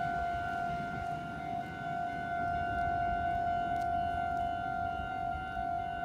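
Japanese railway level-crossing alarm ringing with a steady high tone, over a low rumble.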